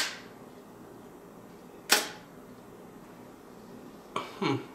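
Mamiya M645 1000s medium-format camera firing its shutter: a sharp mechanical clack as the mirror and shutter trip, then a second clack about two seconds later as the timed exposure ends and the shutter closes.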